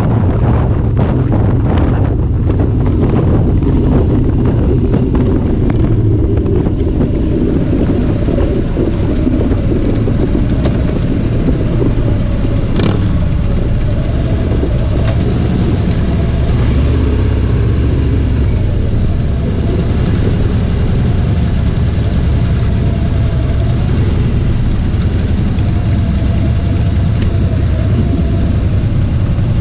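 Harley-Davidson V-twin motorcycles running, with wind rushing over the microphone at first. The rush fades about eight seconds in as the bikes slow, leaving the engines rumbling at low speed toward idle, with one sharp click about thirteen seconds in.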